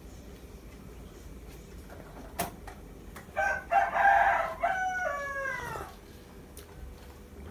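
A rooster crows once, starting about three seconds in and ending in a long falling note. A single sharp knock comes just before it.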